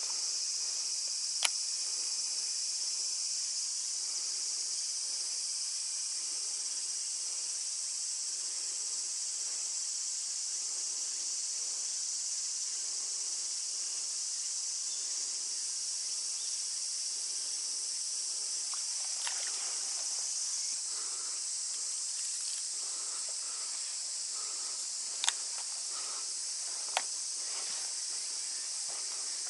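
Steady high-pitched insect chorus. A few sharp clicks stand out, one about a second and a half in and two more near the end.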